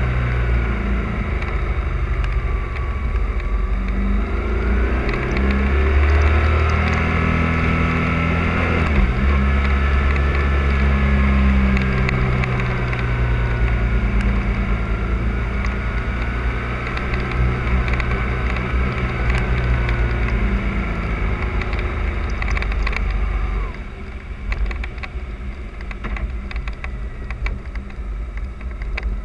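Motorcycle engine running at speed through a series of bends, its pitch rising and falling with the throttle, over a rush of wind on the action camera. The engine note breaks off sharply about nine seconds in, and near the end it drops to a quieter, lower level.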